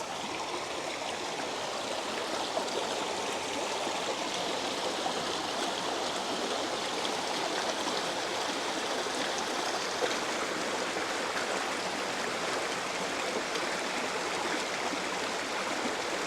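Small rocky brook babbling, its water running over stones in a steady, even rush.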